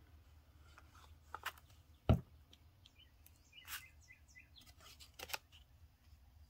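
Paper being handled, folded and pressed by hand on a craft table: scattered light taps and rustles, with one dull thump about two seconds in. Faint bird chirps in the background.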